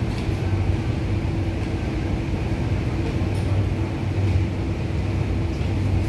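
Steady low hum of an MTR SP1900 electric train standing at a platform with its doors open: the train's onboard equipment running while it is stopped.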